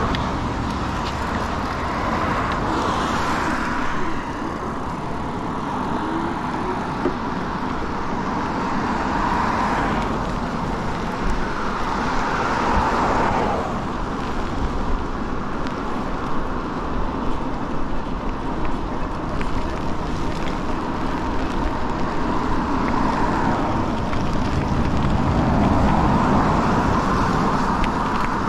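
Road traffic on a wet road: cars passing in the next lane, each a hiss of tyres on wet pavement that swells and fades, several times over a steady low rumble.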